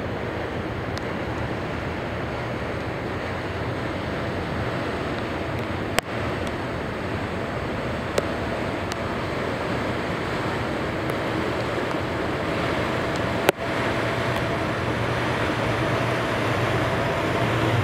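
Water rushing and splashing along a tugboat's bow as it pushes through the water, over the low steady drone of the tug's engine. A few brief sharp clicks break in, the loudest about six and thirteen seconds in.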